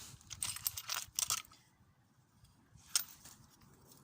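Metal hand tools clinking and clicking as sockets are handled: a flurry of light clicks and knocks in the first second and a half, then a single sharp click about three seconds in.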